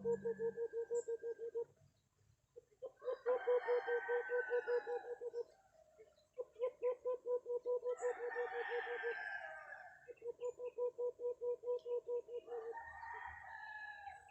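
Chickens calling: four runs of rapid pulsed calls, about seven a second, with a rooster crowing over them three times.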